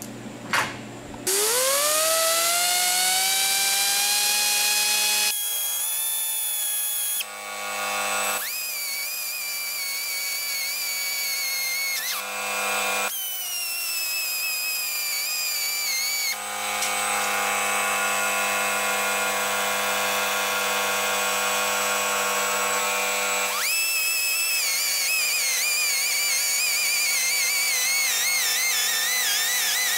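Die grinder with a carbide burr spinning up about a second in with a rising whine, then running at a high steady whine while it grinds a groove through an aluminum weld bead. Its pitch wavers as the burr bites, and it stops or changes briefly a few times.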